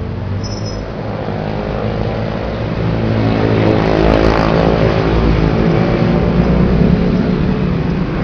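Motor vehicle engine passing close by in street traffic, its drone growing steadily louder to a peak around the middle and then slowly easing off.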